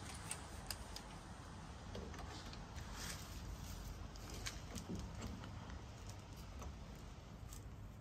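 Faint scattered clicks and rattles of a ratchet PEX crimping tool being handled and fitted over a brass joiner, over a low steady background hum.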